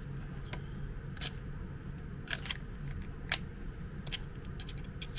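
Scattered sharp clicks and taps of a screwdriver and a rewireable plug's plastic and metal parts being handled, the loudest about three seconds in, over a steady low hum.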